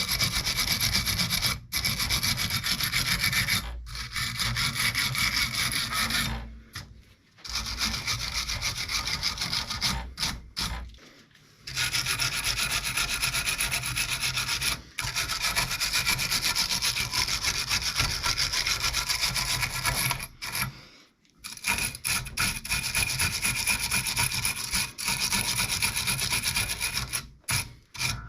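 Rapid abrasive scrubbing strokes, hand-cleaning corrosion and deposits off a motorcycle's thermostat housing. The scrubbing stops for a moment several times, with longer breaks about seven, eleven and twenty-one seconds in.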